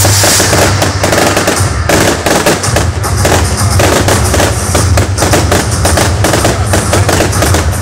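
A fireworks display going off: a rapid, continuous string of bangs and crackling from the shells and their crackling stars, very loud.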